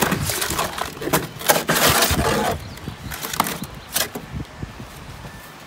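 Wet gravel-and-cement concrete being scraped and scooped from a metal wheelbarrow into a plastic bucket with a hand tool: a dense run of gritty scraping strokes, easing after about two and a half seconds into quieter, scattered scrapes and a few knocks.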